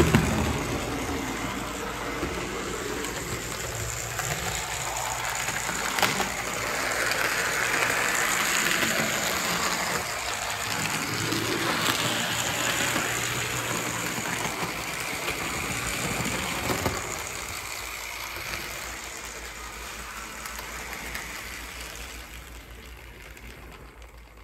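HO scale model steam locomotive running around the layout: its small electric motor and gears whir over the rattle of wheels on track, with a couple of sharp clicks. The running is loudest around the middle and fades away toward the end.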